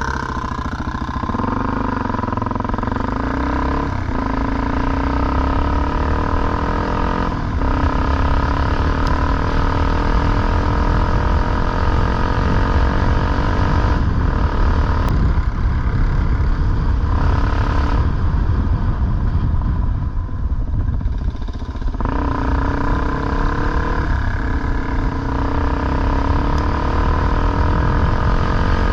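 Off-road motorcycle engine being ridden, its pitch climbing through each gear and dropping at the shifts, several times over, with a spell of lower, quieter running about two thirds of the way through. Wind rumbles on the microphone underneath.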